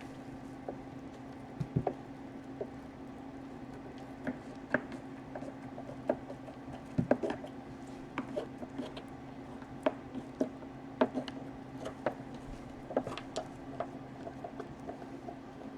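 Irregular light clicks and taps of small laptop parts being handled on a workbench, over a steady low hum.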